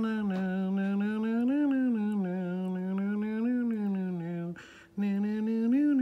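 A long, hum-like vocal tone held steady in pitch with slow up-and-down waverings. It breaks off briefly about four and a half seconds in and then starts again.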